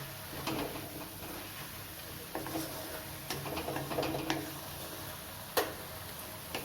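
Scattered clicks and knocks of kitchen utensils against a cooking pot over a low steady hum, as water goes into the chicken soup; the sharpest knock comes about five and a half seconds in.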